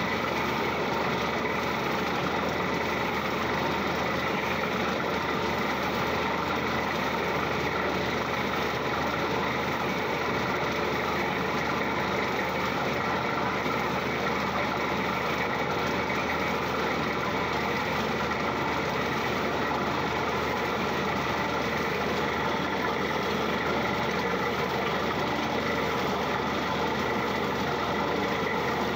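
Small borewell drilling rig running steadily as its drill rod bores into the ground, a continuous machine noise with no pauses.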